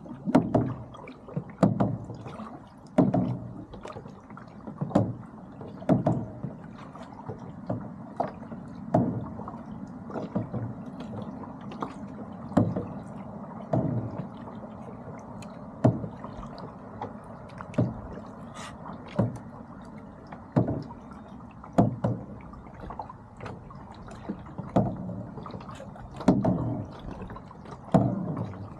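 Lake water splashing and slapping against the side of a moving boat, in sharp hits every second or two over a steady low rumble.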